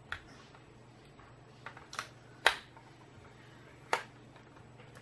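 Sharp plastic clicks and snaps as a small Winsor & Newton Cotman watercolor set's plastic case is opened and its parts handled. There are about five separate clicks, the loudest about two and a half seconds in.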